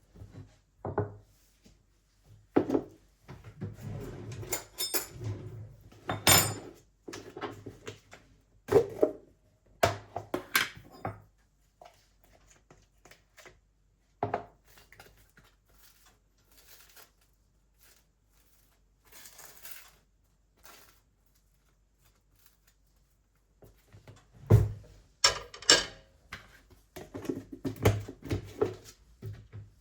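Kitchen handling sounds: scattered knocks, clinks and light clatter of dishes and utensils being set down and moved, busiest in the first ten seconds and again near the end, with a quieter stretch in the middle.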